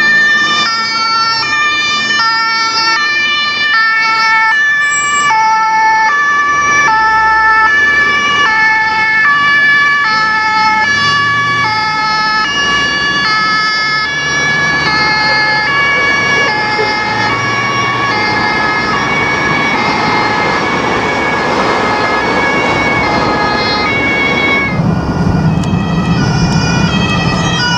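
German fire-service two-tone siren (Martinhorn) on an emergency van, alternating steadily between a high and a low tone. Engine and traffic rumble swells near the end.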